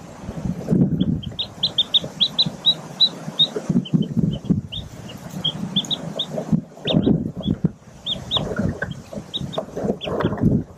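Newly hatched mallard ducklings peeping: many short, high peeps in quick succession, pausing briefly now and then, over louder irregular low rustling and soft low sounds from the hen shifting on the nest.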